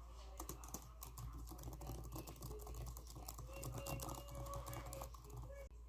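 Computer keyboard being typed on: a fast, irregular run of key clicks over a steady low hum.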